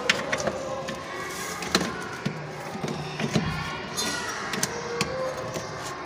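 A handful of sharp clicks and light knocks from the plastic drain motor and its metal catcher linkage being handled and fitted on an LG top-loading washing machine, during a drain seal replacement.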